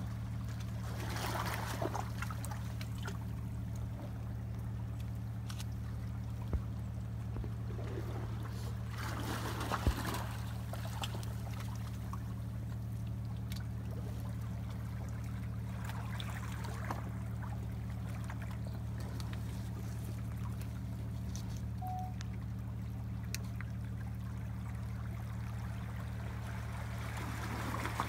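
Sea water washing and trickling among shoreline rocks, swelling in surges every several seconds, over a steady low mechanical hum.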